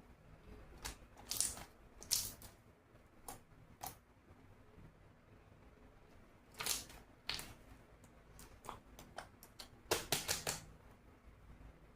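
Jelly slime being squeezed and stretched by hand, giving short sticky clicks and pops in irregular clusters, with a quick run of pops near the end.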